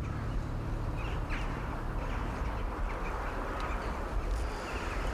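A few short bird calls, about a second in and again near the end, over a steady rushing outdoor background with a low rumble.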